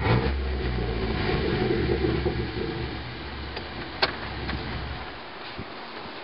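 2010 Jeep Wrangler JK running through an MBRP aftermarket exhaust. The engine eases off after about three seconds and fades near the end, with one sharp pop about four seconds in, the kind of popping this exhaust is known for.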